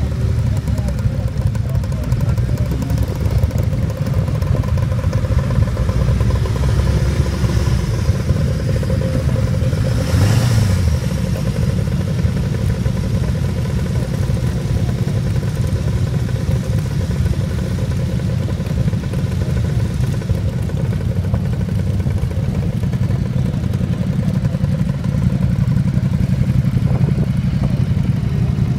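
Several classic motorcycle engines idling together in a queue, a steady low rumble. About a third of the way in, one engine briefly rises and falls in pitch.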